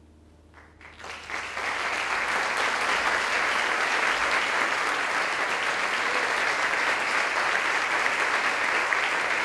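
The last piano chord dies away, then audience applause breaks out about a second in, swells, and holds steady.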